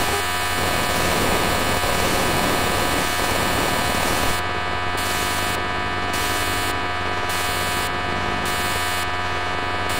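Loud, harsh electronic static from the Amiga demo's sound output, with a steady hum and many held buzzing tones beneath it. From about halfway through, the upper hiss drops out briefly about once a second.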